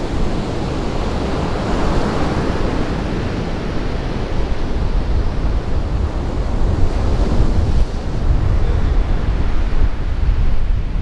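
Sea surf washing onto a sandy beach, with wind buffeting the microphone in a heavy low rumble.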